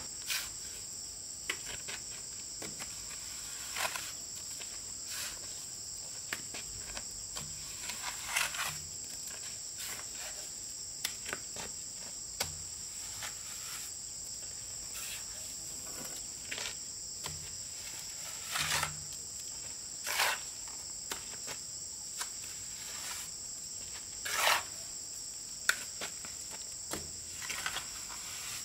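Plasterer's trowel scraping and tapping on freshly applied cement render, in irregular short strokes, some drawn out into longer scrapes. Behind it runs a steady high-pitched drone of insects.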